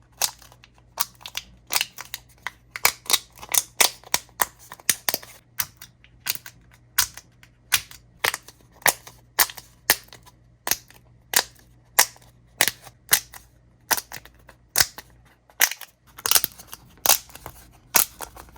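Bubbles of a pop-it fidget toy being pressed one after another: a run of sharp pops, about two or three a second at an uneven pace.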